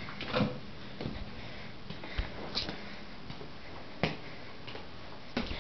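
A few scattered short knocks and clicks, the clearest about four seconds in, over a steady low hiss in a small room.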